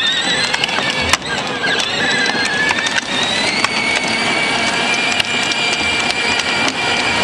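Battery-powered ride-on toy buggy driving on asphalt: a steady whine from its electric motors and gearboxes that drifts up and down in pitch, over the crunch and clatter of hard plastic wheels on the pavement.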